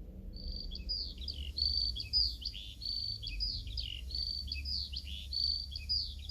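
Lark singing: the same quick phrase of high, falling chirps repeated over and over, beginning a moment in, over a low steady hum.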